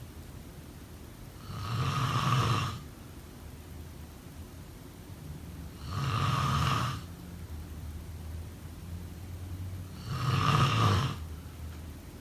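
A person snoring: three snores about four seconds apart, each lasting about a second.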